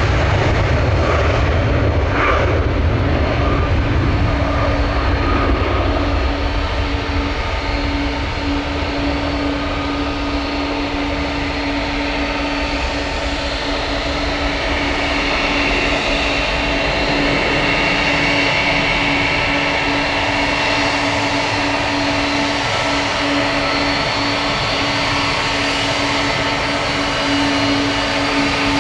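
Jet airliner engines running: a low rumble, strongest in the first few seconds, under a steady whine that grows stronger from about halfway.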